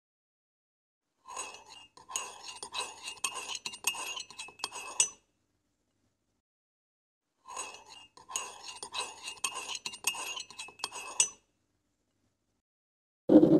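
Wooden spoon beating eggs and melted butter in a plastic mixing bowl: fast, dense clicking and clinking against the bowl, in two stretches of about four seconds with dead silence between.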